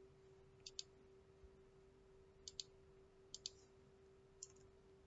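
Computer mouse clicking four times, each click a quick press-and-release pair of ticks, over a faint steady electrical hum.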